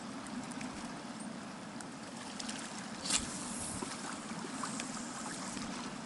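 Steady rush of flowing river water, with a few faint clicks and one short knock about three seconds in.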